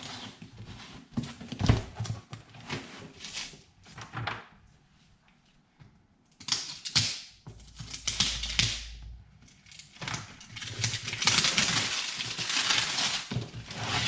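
A product box being opened by hand: scattered clicks and knocks of the box and packaging being handled, then, from about ten seconds in, a longer spell of rustling or tearing packaging.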